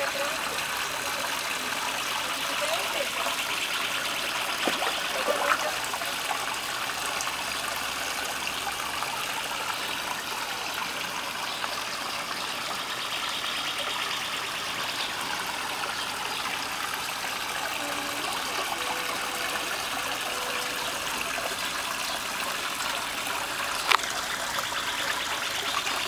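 Water splashing and trickling steadily into a koi pond from its waterfall inlet, a continuous even rush. A single sharp click comes near the end.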